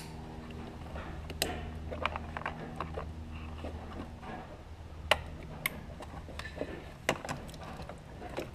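Plastic wiring-harness connectors and loose harness wiring handled by hand: scattered sharp clicks and light rattles, the loudest click at the very start and others about one and a half, five and seven seconds in, over a steady low hum.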